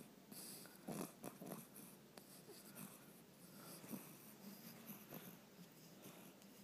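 A sleeping pet snoring faintly, with a few brief louder breaths about a second in, around four seconds and around five seconds.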